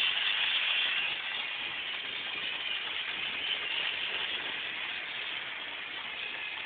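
A vehicle passing in the street, a steady hissing rolling noise that slowly fades.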